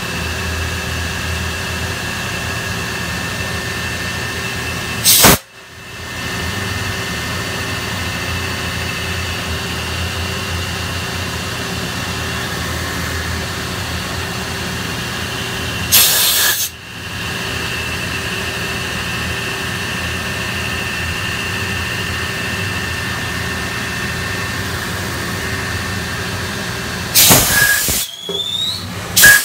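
Okuma Multus mill-turn machine milling a pocket in a round metal workpiece under coolant: a steady machining noise with a high, even whine. It is broken by brief loud rushes of noise about five and sixteen seconds in and again near the end, where a rising whine also sounds.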